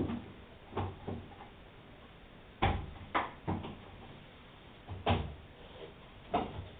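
A series of separate knocks and clunks at irregular intervals, as of objects being handled and set down, or of small doors or panels being opened and shut.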